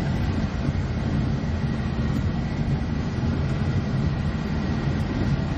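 A vehicle's engine and tyres make a steady low rumble, heard from inside the cab while it drives over sand.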